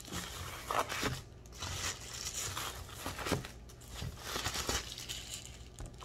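Thin plastic wrapping bag crinkling and rustling as it is pulled off a small portable fan, in uneven rustles with a few sharper crackles.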